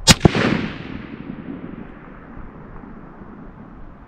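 A single rifle shot from a Winchester Model 88 lever-action rifle, followed a fraction of a second later by a second sharp crack and a rolling echo that dies away over about a second and a half.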